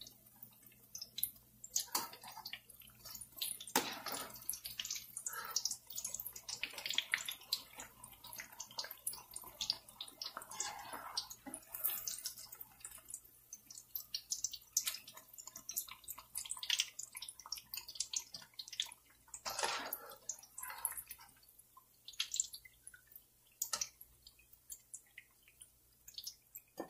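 Eggplant slices frying in hot oil: an irregular sizzle with crackles and pops of spitting oil, and a few louder knocks and scrapes of a metal slotted spoon against the pan as slices are lifted out.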